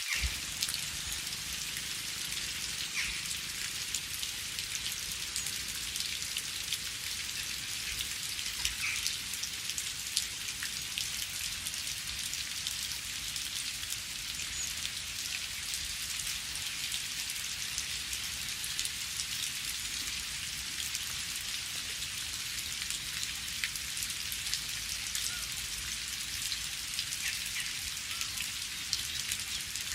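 Steady rain falling on leaves and ground, an even hiss with many individual drops pattering throughout.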